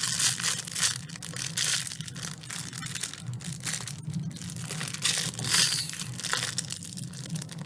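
Plastic packaging crinkling and rustling in irregular bursts as a small toy is handled and unwrapped.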